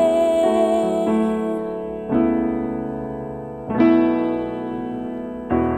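Piano chords in a slow gospel ballad: a held note fades out in the first second or so, then three chords are struck about a second and a half apart, each left to ring and die away.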